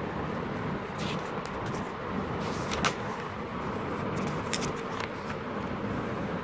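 Pages of a paper magazine being turned by hand: several short, crisp paper rustles, the sharpest a little under three seconds in, over steady background noise.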